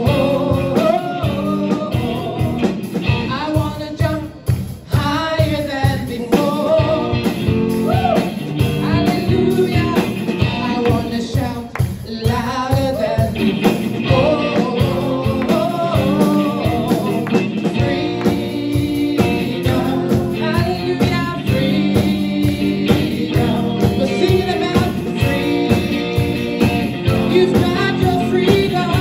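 Live worship song: a woman sings the lead over electric guitar and a steady beat.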